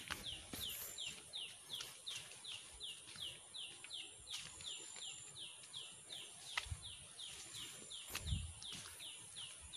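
Forest ambience: a steady high insect buzz under a very regular falling chirp, repeated nearly four times a second. A few low thumps come in the second half.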